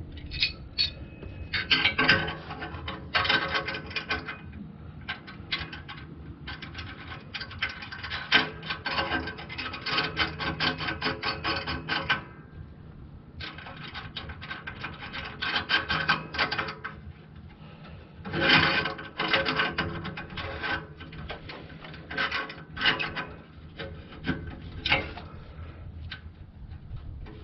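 Hand ratchet clicking in fast runs of a few seconds each, with short pauses between runs, as the nuts on the clamp joining the new catalytic converter to the exhaust pipe are tightened.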